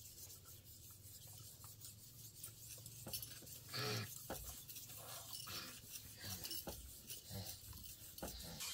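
Faint scraping and rubbing of wooden arrow shafts being worked by hand, with scattered light clicks and a short louder rasp about four seconds in.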